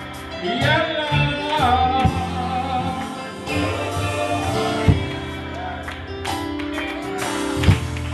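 A man singing a gospel song into a handheld microphone over steady instrumental accompaniment. His voice slides through a drawn-out phrase about a second in, and a drum hit lands every few seconds.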